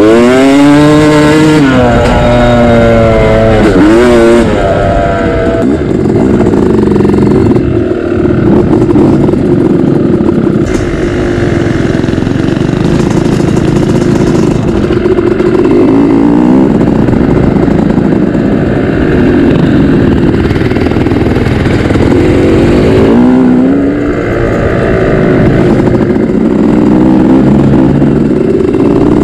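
Dirt bike engine under way. In the first few seconds it revs up and drops back several times as it shifts, then it runs at a steadier pitch at speed. Later it rises and falls again, climbing once more near the end.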